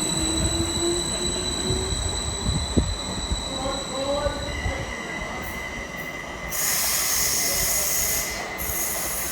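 Train running through the station with high-pitched metallic squealing from its wheels on the rails. There is a sharp knock just under three seconds in, and a loud hissing squeal starts about six and a half seconds in and lasts about two seconds.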